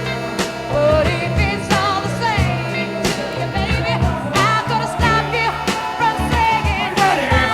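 Pop song with a sung melody over a bass line and a steady beat.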